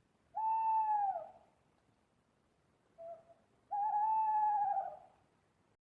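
Owl hooting: two long hoots of about a second each, the first dropping in pitch at its end, with a short, quieter note between them.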